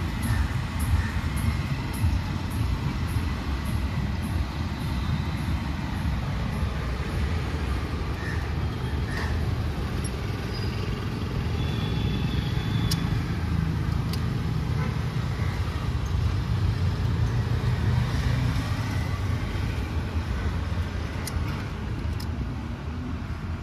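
Steady low background rumble, with a few faint clicks scattered through it.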